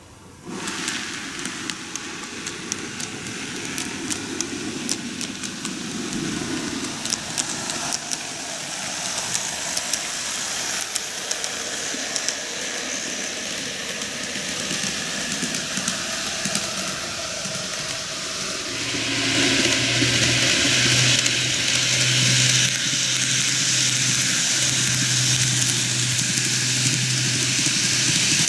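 Two N-gauge model electric trains running on plastic track: a steady rattle of small wheels with quick clicks over the rail joints. About two-thirds of the way through the running noise grows louder and a steady low hum joins in as the trains come near.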